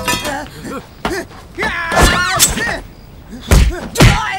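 Fight sound effects: about five sharp punch-and-blow thwacks, the two loudest close together near the end, mixed with shouts and pained cries.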